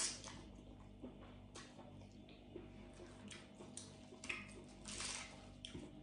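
A person eating rice noodles: a sharp slurp as the noodles are sucked in, then wet chewing and lip-smacking in short bursts every second or so.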